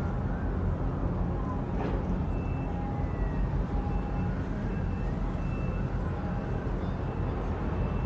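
Steady low outdoor rumble of distant engines and traffic, with faint short high beeps coming and going over it and a brief click about two seconds in.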